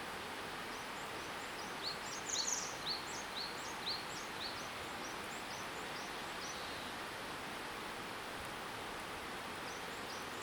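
A small songbird singing a run of short, rising high chirps, about two a second, through the first half, over a steady outdoor rushing hiss.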